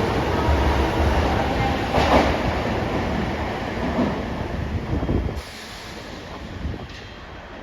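Osaka Metro 22 series subway train (set 62, a former OTS-series set noted for its unusual running noise) pulling away along the platform, its wheels knocking over rail joints. The noise drops off sharply about five seconds in as the train moves away.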